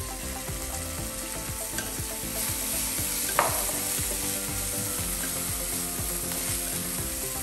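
Ground chilli paste and cockles sizzling in a hot frying pan while a wooden spatula stirs them, with one sharp knock about three and a half seconds in.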